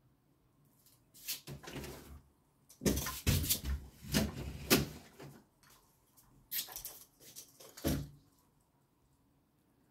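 Close rustling and bumping in three bursts, with quiet between them: a phone being moved and handled near its microphone.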